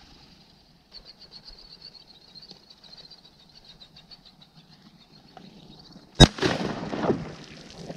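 A single shotgun shot about six seconds in, the loudest sound, followed by about a second of noise: the hunter downing a drake mallard over the decoys. Before the shot, faint rapid high-pitched ticking.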